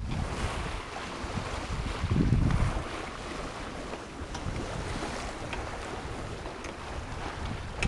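Wind buffeting the microphone and water rushing along the hull of a sailboat running downwind under spinnaker, with a stronger low gust about two seconds in and a few faint ticks.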